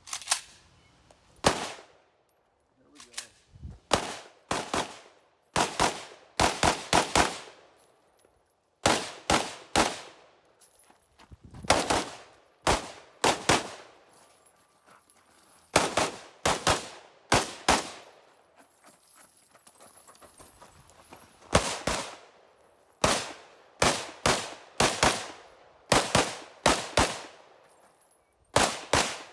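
Rifle shots fired in quick strings of two to five, with pauses of a second or so between strings, each shot sharp with a short echo.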